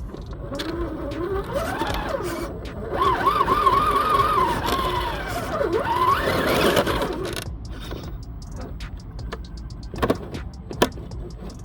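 Electric motor and gear drivetrain of an Axial SCX10 II RC crawler whining as it is driven, the pitch rising and falling with the throttle for several seconds. A few sharp clicks follow near the end.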